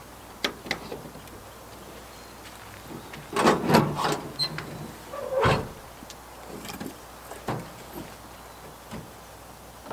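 Pickup truck camper shell being opened. A few latch clicks, then a loud rattling scrape as the rear glass hatch is lifted, then a heavy thunk about halfway through as the tailgate drops open. A few lighter knocks follow.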